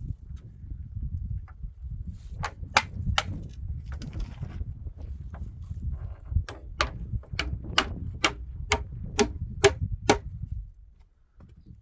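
Hammer blows on wood, as in nailing roof planks: three quick strikes about two and a half seconds in, then a steady run of about nine strikes, a little over two a second, over the next few seconds.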